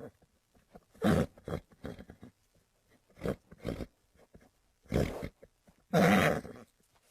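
Horse making a series of short, rough, breathy sounds, about six bursts with pauses between them; the loudest come about a second in and, longest of all, about six seconds in.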